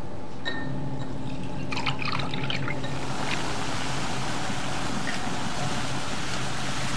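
Nitric acid poured from a glass bottle onto copper pieces in a flask, with a few light glass clinks. From about three seconds in comes a growing fizzing hiss as the copper bubbles and dissolves in the acid. A low steady hum runs underneath.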